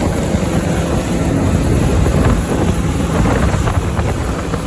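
Heavy farm machinery engine running steadily at a constant speed, with wind rumbling on the microphone.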